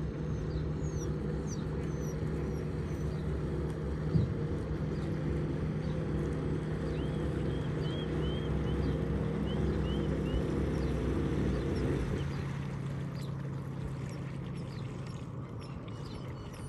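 Stand-up jet ski engine running steadily as the craft comes in across the water, then easing off and dropping about twelve seconds in as it slows near the shore. A single sharp knock sounds about four seconds in.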